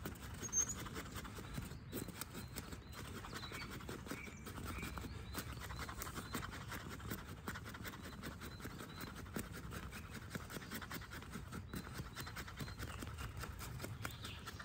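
Fast, even run of light scratching knocks, many strokes a second, from a knife being worked into dry wood.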